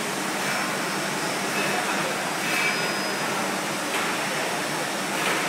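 Automatic chocolate pillow packing machine and its feed conveyor running, a steady mechanical whir without a clear beat.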